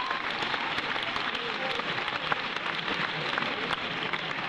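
Audience applauding: many hands clapping steadily after a joke.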